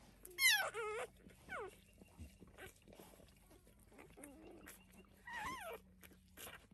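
Newborn Anatolian Shepherd–Great Pyrenees cross puppy squealing: three short, high, wavering cries, the loudest about half a second in, a short one soon after and another near the end.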